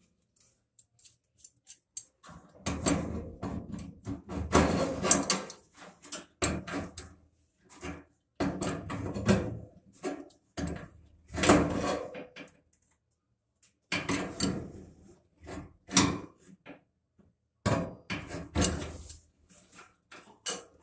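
Tools and metal parts clattering and scraping inside a gas dryer's sheet-metal cabinet, in irregular bursts with sharp knocks.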